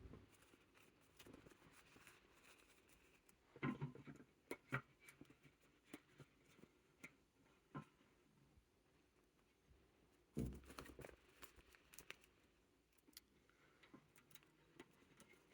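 Faint handling sounds of artificial rose stems and their plastic clips being pushed between the wire bars of a small bird cage: light rustles and clicks, in a cluster about four seconds in and another about ten seconds in.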